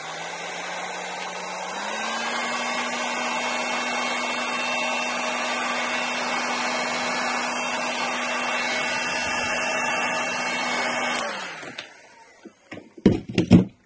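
Electric heat gun blowing hot air to shrink heat-shrink tubing over soldered wire joints: a steady rushing blow with a motor hum that steps up in pitch about two seconds in, then switches off near the end, followed by a few light knocks.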